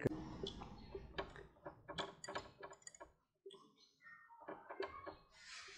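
Faint taps and short scraping strokes of a marker writing on a whiteboard, with a brief pause partway through and a longer hissing stroke near the end.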